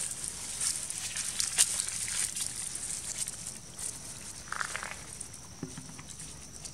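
Dry fallen leaves crackling and rustling as long-tailed macaques shift and step about on them, over a steady high hiss, with a brief higher sound about four and a half seconds in.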